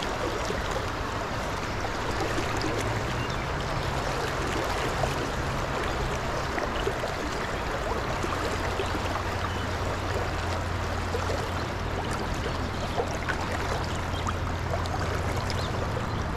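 Fast creek water rushing steadily over rocks.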